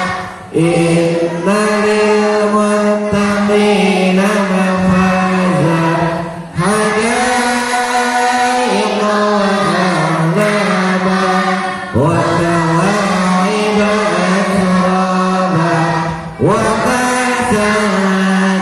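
Voices reciting Qur'anic verses in a slow chanted melody, the murajaah recitation of memorised surahs. The notes are long and held, in phrases of about five seconds with a brief pause for breath between them.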